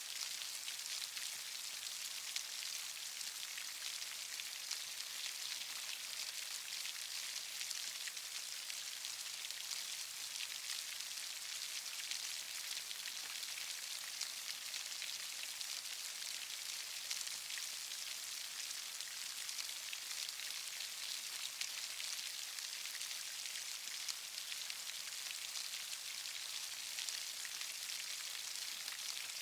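Steady rain falling, a fine even hiss of many small drops with no let-up.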